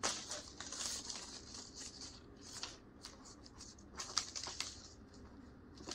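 Paper backing of a roll of butyl sealant tape rustling and crinkling as it is pulled off and handled, with a few sharp crackles, the loudest about four seconds in.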